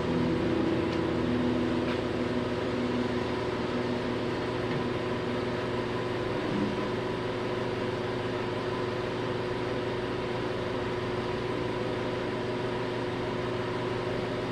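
A steady machine running, an even noise with a constant hum, cutting off abruptly at the end.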